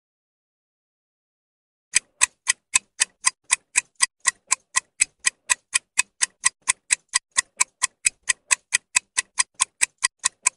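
Countdown timer ticking sound effect, sharp clock-like ticks at an even pace of nearly four a second, marking the time left to answer a quiz question. The ticking starts about two seconds in, after near silence.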